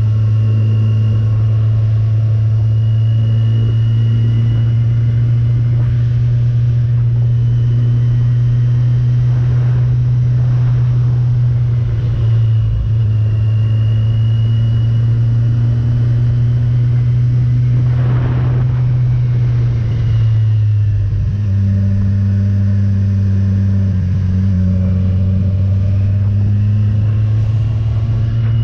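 Motorcycle engine running steadily on the move, with road and wind noise underneath. Its note dips briefly about twelve seconds in, then settles to a slightly lower steady pitch about twenty seconds in, as the throttle or gear changes.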